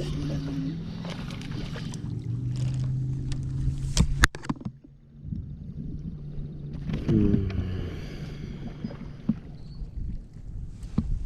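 Boat motor humming at a low steady pitch that drops slightly about two seconds in, with water and wind noise; a sharp knock just after four seconds.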